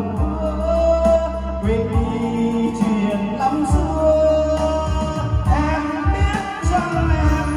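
A man singing a Vietnamese karaoke song into a microphone over a backing track with heavy bass, played loud through a large event PA system of line-array speakers and subwoofers, tried out after tuning. The sung notes are long and held.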